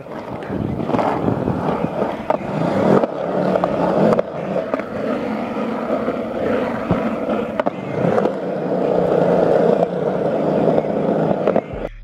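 Skateboard wheels rolling over concrete: a steady rumble with a few sharp clicks along the way. It cuts off suddenly near the end.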